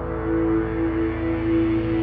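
An experimental ambient-texture preset from a sample library played on a keyboard: one low note held with overtones above it and a pulsing low layer beneath, swelling gently in level.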